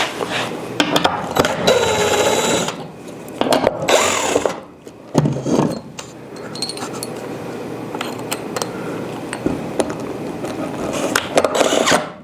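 Power drill running in several short bursts, spinning up and down, while the wall-mounted hinge bracket is unscrewed and refitted the other way up, with scattered clicks and knocks between bursts.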